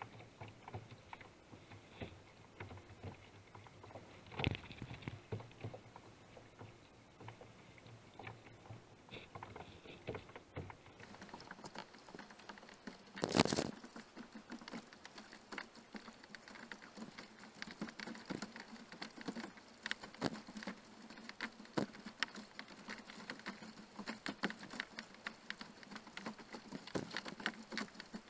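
Irregular light patter of water drops and small splashes, with one louder splash about thirteen seconds in.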